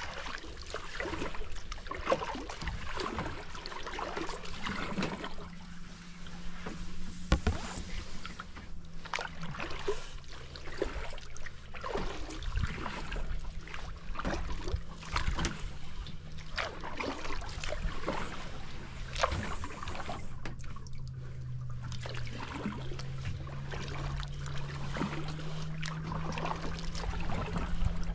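A small boat's motor hums steadily, its pitch dropping and rising a little a few times, under irregular splashing and lapping of water against the hull.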